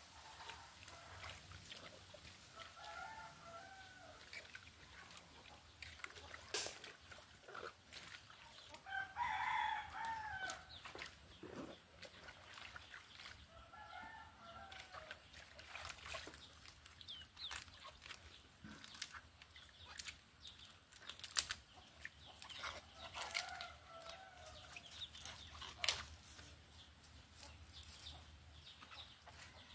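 A rooster crowing about four times, the loudest crow about a third of the way in. Scattered sharp clicks and knocks of vegetables being handled come in between.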